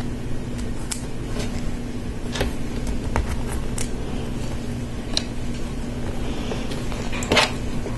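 LEGO Technic plastic parts clicking as a gear and bushing are fitted onto an axle by hand: scattered light clicks, about seven, the strongest near the end. Under them runs a steady low hum.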